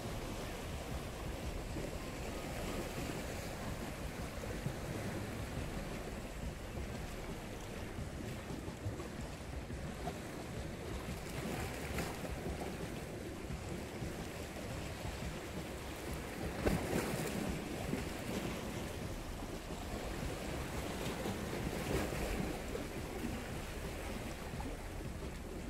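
Sea waves washing against shoreline rocks, swelling every few seconds, with wind buffeting the microphone.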